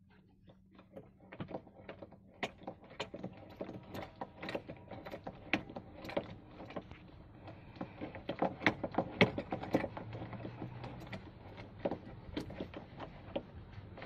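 Irregular clicks and taps of plastic and metal as hands work a Maruti Ertiga's front seat belt upper anchor, its height adjuster and the plastic B-pillar trim. The clicks come thickest and loudest about eight to nine seconds in.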